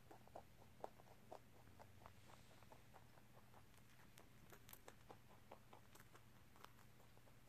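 A rabbit crunching and chewing a crunchy snack: quick, irregular little crunches, a few a second.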